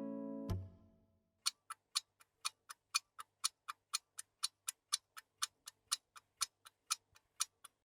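Steady mechanical ticking like a clock, about four sharp ticks a second, some loud and some faint. The ticking follows the tail of a strummed guitar sting that cuts off with a click.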